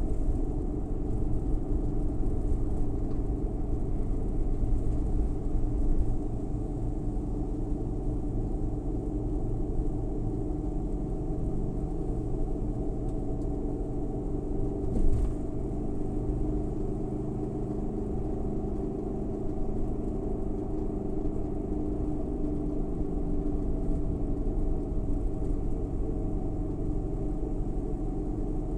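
Suzuki Every Wagon kei van on the move: steady engine and road noise, a little quieter from about six seconds in, with a single short thump about fifteen seconds in.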